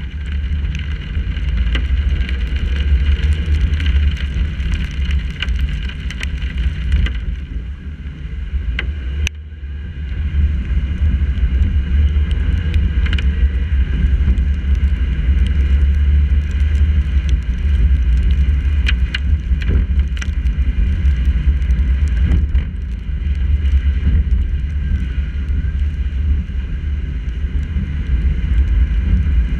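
Car driving on wet streets in the rain, heard through a GoPro in its housing on the hood: a steady low rumble of road and wind noise with scattered ticks of raindrops hitting the housing. The rumble eases for a couple of seconds about a quarter of the way through.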